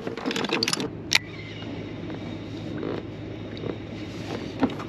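Steady outdoor noise of wind and water around a drifting inflatable boat, with a faint low hum underneath. A few clicks and handling knocks from the fishing gear come in the first second, the sharpest just after one second in.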